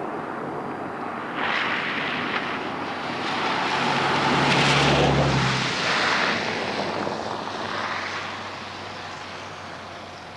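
A motor vehicle passing by: a rushing noise swells over the first few seconds, peaks about halfway with a low engine hum, then fades away.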